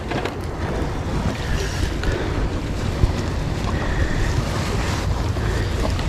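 Steady wind rumbling on the microphone, over sea water washing against the rocks.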